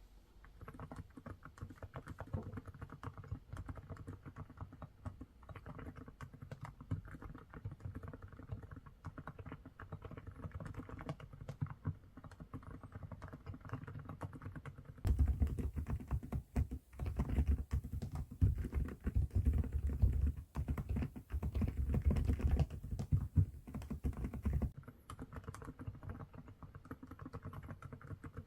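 Fast typing on a mechanical keyboard with ceramic keycaps on TTC Peanut Latte switches: a dense run of keystroke clacks. About halfway through it turns louder and deeper for some ten seconds, then returns to the lighter sound.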